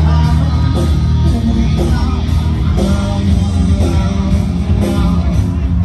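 Live band playing loud rock music.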